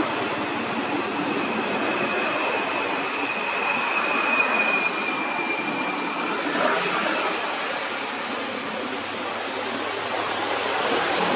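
Steady rushing outdoor background noise with a thin, steady high whine through the first half, giving way to a second, higher whine about halfway through.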